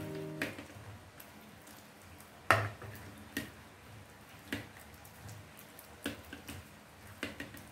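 A hand squishing thick pakora batter in a steel bowl: soft, wet squelches, with a sharper knock or slap against the bowl every second or so.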